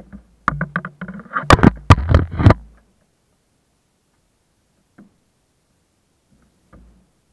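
A rapid clatter of sharp knocks and clicks lasting about two seconds as the Zugvogel 3a glider's canopy is unlatched and swung open. Two faint ticks follow later.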